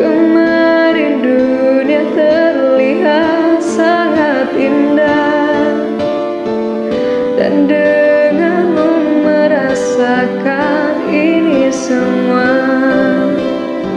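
Karaoke recording: a ballad backing track with a woman singing a melody over it.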